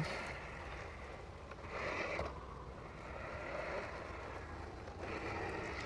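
Anthbot robot lawn mower running, its cutting blade spinning with a low, steady hum. A brief swell of higher whirring comes about two seconds in.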